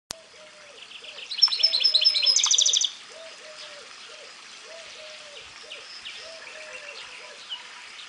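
Goldfinch × canary hybrid (mule) singing: a loud burst of fast trills and rapidly repeated high notes about a second in, lasting about a second and a half, followed by fainter, scattered twittering.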